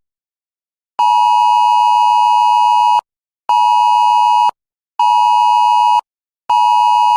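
Emergency alert attention tone: a steady electronic beep, sounded in bursts after about a second of silence, one long, two short and another long, with half-second gaps.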